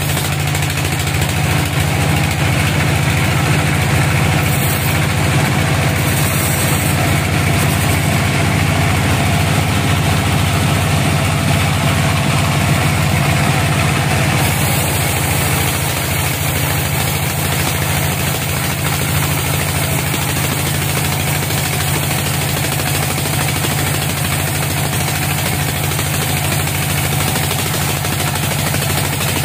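Band sawmill running steadily, its blade cutting lengthwise through a crooked teak log with a steady droning hum.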